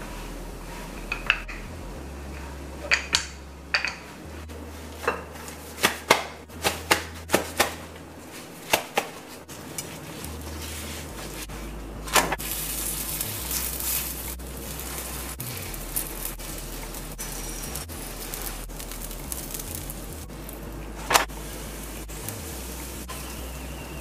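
Wooden rolling pin knocking and clacking against a wooden board while rolling out oil roti dough, a series of sharp knocks over the first ten seconds. About twelve seconds in, the dough goes onto a hot flat tawa and a sizzling hiss starts, settling into a quieter steady sizzle as the roti cooks.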